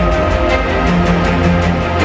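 Music with a steady, fast beat over a strong bass line.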